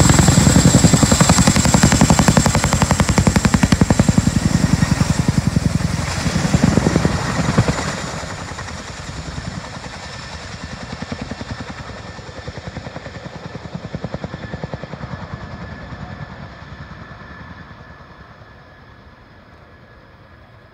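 Two Chinook tandem-rotor helicopters flying past: rapid rotor-blade chop with a steady high whine, loud at first and then fading steadily as they fly away.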